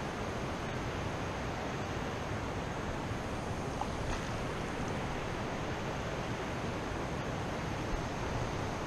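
Steady, even rushing noise outdoors, unbroken and without distinct events.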